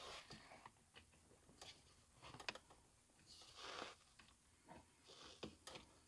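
Near silence broken by faint, scattered small clicks and scratches: a small screwdriver turning tiny screws out of a plastic seat-belt buckle cover.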